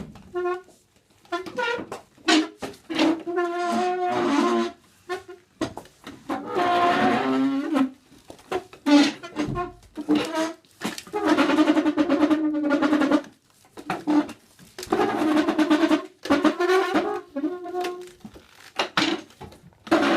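Chair legs scraping across a floor in a stop-start string of pitched, horn-like squeaks and groans, some short, some held for a second or two.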